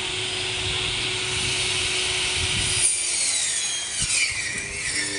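Electric meat-and-bone saw running steadily through meat and bone with a rasping hiss. About three seconds in the cutting sound stops suddenly and a whine falls in pitch.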